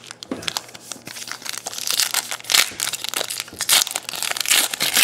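Foil wrapper of a Panini Contenders basketball card pack being torn open and crinkled by hand: a dense crackling that builds about a second and a half in and is loudest in the second half.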